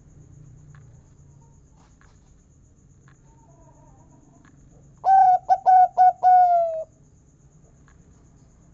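Zebra dove (perkutut) singing one cooing phrase about five seconds in: four quick short notes, then a longer deep 'kung' note that falls slightly in pitch. A faint softer call comes just before it.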